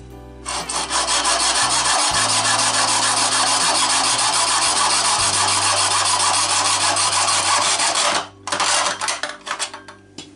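Hacksaw cutting a chrome waste pipe held in a mitre box: steady back-and-forth sawing strokes, a brief pause about 8 seconds in, then a few shorter strokes as the cut finishes.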